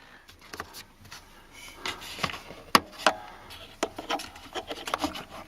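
Hands handling plastic climate-control vacuum actuator parts: scattered light clicks, taps and rubbing, with one sharper click nearly three seconds in.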